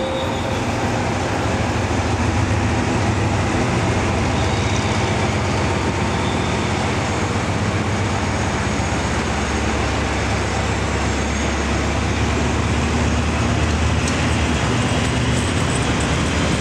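State Railway of Thailand diesel locomotive D.4518 running with local train 448: a steady low engine note with an even rumble of the train.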